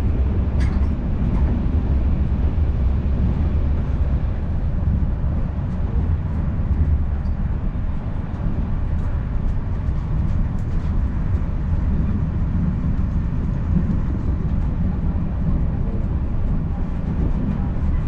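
Steady low rumble of a passenger train coach running along the track, heard from a seat inside the carriage, with a light click about half a second in and a few faint ticks later on.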